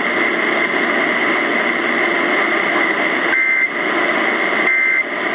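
Radio static hiss from a weak, distant broadcast signal. About three seconds in and again near the end come short two-tone data chirps, a second or so apart: the SAME end-of-message bursts that close an Emergency Alert System warning.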